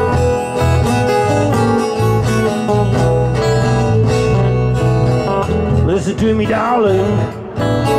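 Acoustic blues band playing an instrumental break: two acoustic guitars, one taking the lead, over a bass guitar line. A singing voice comes back in about six seconds in.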